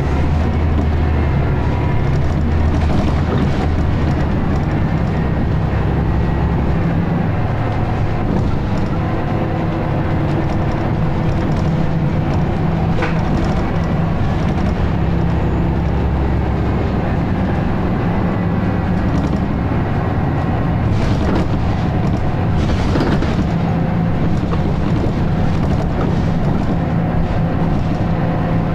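Scania L94UB single-decker bus's diesel engine running under way, heard from inside the saloon. The low engine note swells and eases several times as the bus pulls and backs off, with a few short knocks and rattles.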